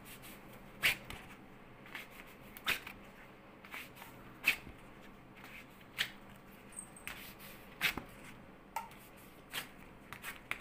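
Hand waxing with a cloth wax strip on a forearm: the strip pressed on and pulled off against the hair growth, a string of about nine short, sharp rips and pats, roughly one a second.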